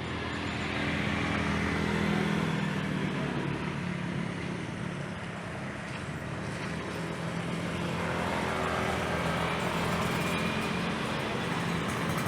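Jet airliner engines heard across the airfield: a steady rumble and hiss with a low hum under it, swelling over the first couple of seconds and then holding.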